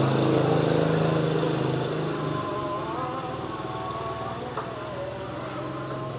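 A small motor droning steadily, with a wavering higher whine over it; the drone eases off after about two seconds.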